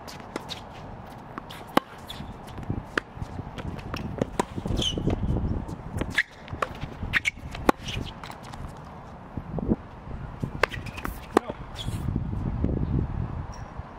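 Tennis rally on an outdoor hard court: sharp pops of racquet strikes and ball bounces at irregular intervals, with shoes scuffing and squeaking on the court. A low rumble comes in twice, about five seconds in and near the end.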